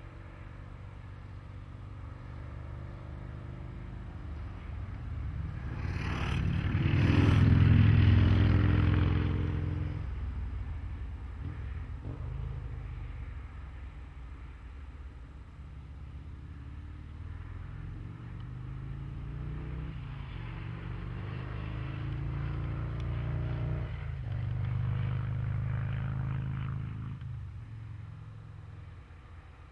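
A motor vehicle's engine running. It swells into a loud pass about seven to nine seconds in, then fades, and swells more gently again from about twenty to twenty-seven seconds in.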